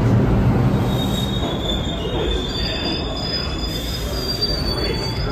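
New York City subway train in a station: a low rumble, with high-pitched steel wheel squeal starting about a second in and a second, higher squeal joining about halfway through.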